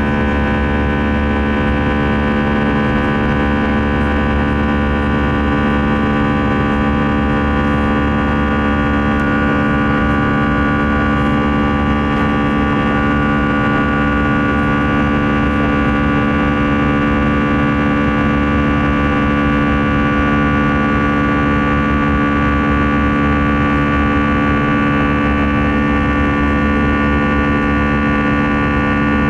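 Airbus A320 jet engines at high thrust heard from inside the cabin: a steady buzzsaw drone made of many fixed tones over a low rumble.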